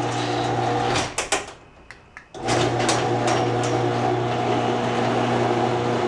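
LiftMaster 3265 chain-drive garage door opener running, a steady motor hum with clicks and rattles from its loose, sagging drive chain. The hum cuts out about a second in and starts again about a second and a half later.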